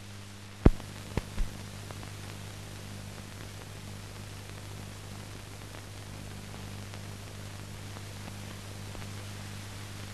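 No recorded sound, only the steady hiss and low mains-like hum of a silent film's transfer. Three sharp clicks come close together about a second in, the first the loudest.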